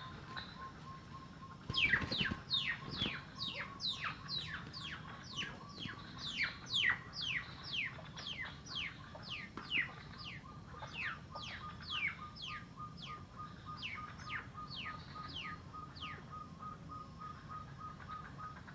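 Hill partridge (puyuh gonggong) calling: a long series of sharp, falling whistled notes, about two to three a second. The series starts about two seconds in and stops a couple of seconds before the end, over a steady fast-pulsing tone.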